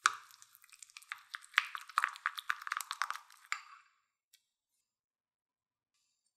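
Wooden spoon stirring a thick paste of minced garlic, melted butter and mayonnaise in a small glass bowl: wet mixing with rapid clicks of the spoon against the glass, stopping about three and a half seconds in.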